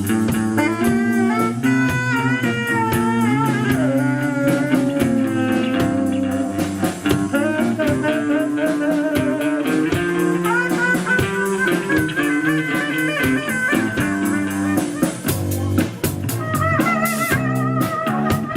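Rock band playing an instrumental passage live: a melodic lead line with wavering, bending pitch over bass and drum kit, with guitar.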